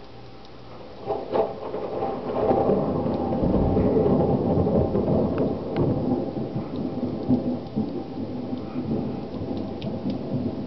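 Thunder: a sharp crack about a second in, then a long rolling rumble that swells and slowly fades.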